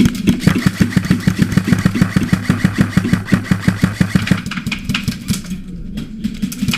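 Airsoft electric gun firing a long full-auto burst: a rapid, even rattle of about ten shots a second over the whine of its gearbox motor. It stops about four and a half seconds in, followed by a few scattered knocks.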